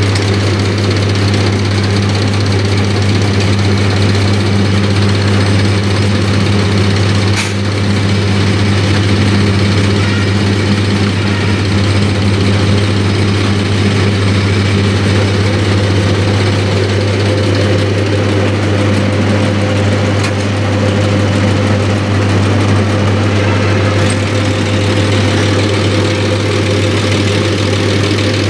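Diesel injection-pump test bench running steadily, its drive turning an inline injection pump, with a strong, even hum. A single sharp click about seven seconds in.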